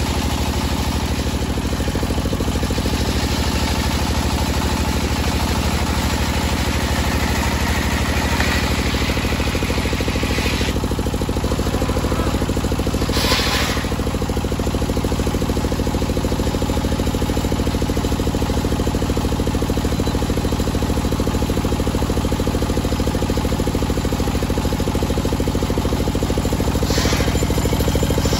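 Large engine-driven table circular saw running steadily, its blade ripping a teak beam. There is an even engine drone underneath, with brief louder surges about halfway through and near the end.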